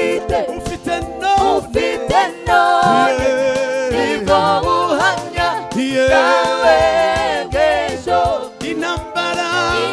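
Man singing a gospel worship song, with gliding and long-held notes, over backing music with a beat.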